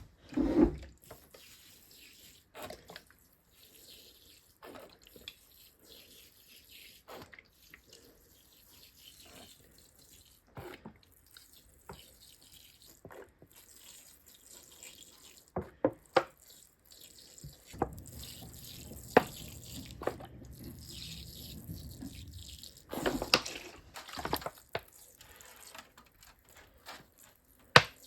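Water dribbling and dripping from a squeeze bottle with a holed cap onto seedling trays, with scattered knocks and clicks of plastic being handled.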